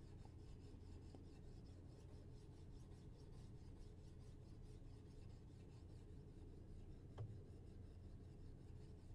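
Faint, steady back-and-forth rub of 600-grit sandpaper stroked by hand along a hardened file-steel knife blade held in a vise. A light knock about seven seconds in.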